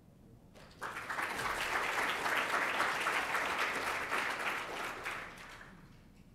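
Audience applauding, starting about a second in and dying away over the last second or so.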